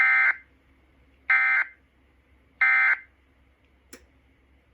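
Emergency Alert System end-of-message (EOM) signal: three short, harsh buzzing bursts of SAME digital data tones, about a second apart, marking the end of the alert message. A faint click follows near the end.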